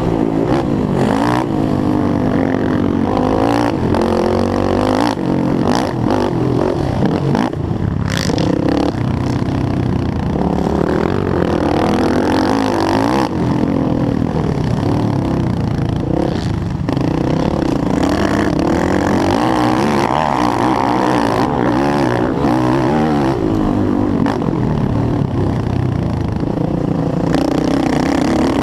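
Yamaha YFZ450R racing quad's single-cylinder four-stroke engine under race throttle, its pitch rising and falling over and over as the throttle opens and closes, with scattered short knocks and clatter.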